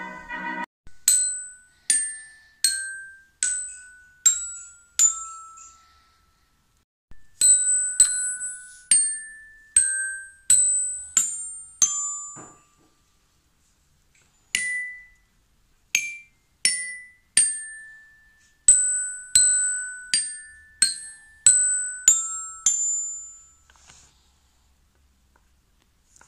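A child picking out notes one at a time on a toy glockenspiel with a mallet. Each note rings clearly and dies away within about a second. The notes come in three short phrases with brief pauses between them.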